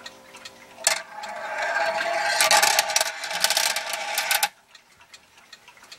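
Metal balls of a Mattel rolling ball clock tipping off the full minute track and clattering and rattling down its plastic tracks as the clock reaches the half hour. The clatter starts with a click about a second in, over the faint hum of the clock's synchronous motor, grows louder, then stops abruptly after about three and a half seconds.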